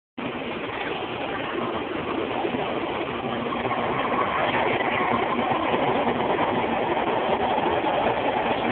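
Taiwan High Speed Rail 700T bullet train pulling into a station platform: a steady rushing rumble that grows louder as the train approaches and passes, with a faint whine slowly falling in pitch as it slows. It is heard through a phone microphone.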